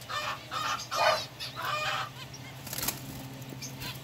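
Aviary birds calling: a run of short clucking calls and chirps, some with quick up-and-down pitch sweeps, over a low steady hum.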